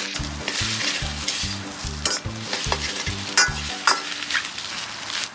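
Fried rice sizzling in a wok over a campfire as it is stir-fried. A metal utensil knocks and scrapes against the wok a few times, each knock ringing briefly.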